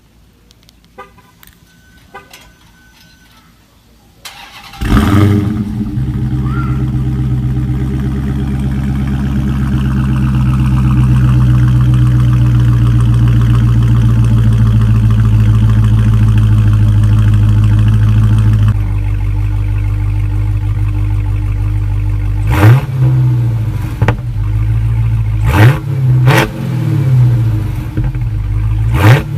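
Dodge muscle car engine starting about five seconds in after a few faint clicks, then idling high and steady before dropping to a lower idle. Near the end it is blipped in four short revs.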